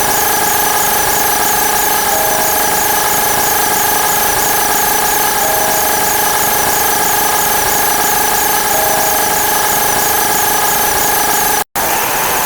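A dense stack of looped sound effects: steady high whining tones with a fast repeating chirp over them. Near the end it cuts out for an instant and a noisier, hissing effect takes over.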